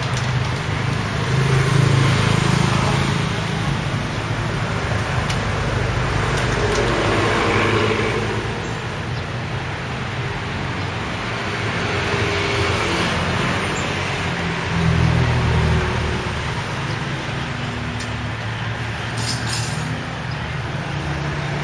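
Street traffic: motor vehicles passing close by with a steady rumble that swells and fades a few times.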